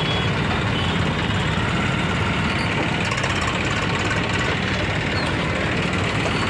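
Eicher 330 tractor's diesel engine running steadily at close range, an even low running sound, over the general noise of other traffic.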